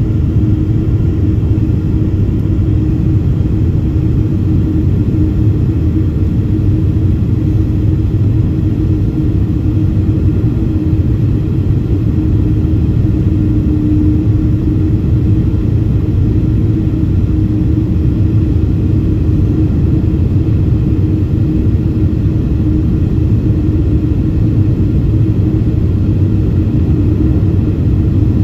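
Cabin noise of a Boeing 767-400ER on final approach with flaps extended: a steady, loud low rumble of engines and airflow, with a constant hum running through it.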